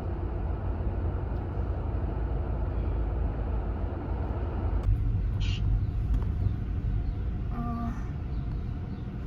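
Road and engine noise of a car being driven, heard from inside the cabin: a steady low rumble, with a brief higher sound about halfway through and a short tone near the end.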